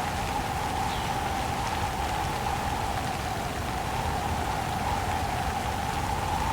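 Steady rain with wind howling through it in one wavering pitch that sags a little and rises again near the end, and a few faint drop ticks.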